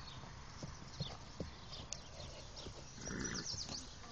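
A horse walking on grass and dirt, its hooves giving faint, scattered thuds, with a brief rushing noise about three seconds in.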